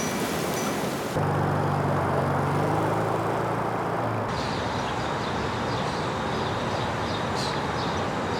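Outdoor ambience cut from several recordings: a vehicle engine running steadily as a low hum for about three seconds, then a noisy outdoor bed with faint short high chirps.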